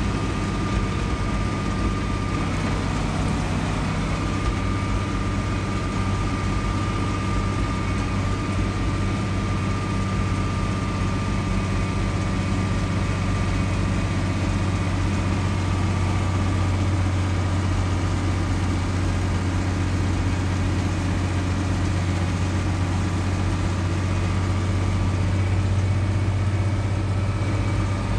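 Tractor engine running steadily as the tractor drives along, heard from inside the cab: a steady low drone with a thin, even whine above it.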